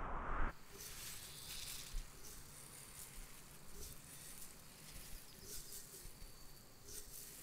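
A louder rushing noise cuts off about half a second in, leaving a faint, high hiss that swells and fades, with a few soft low tones beneath it.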